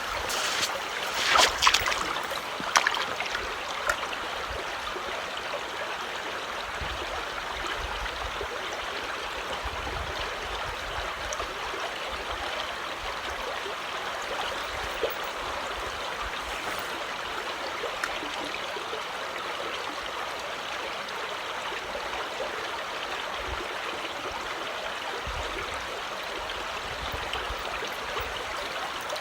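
Creek water running steadily over rocks, a continuous trickling rush. A few brief sharp knocks sound in the first three seconds.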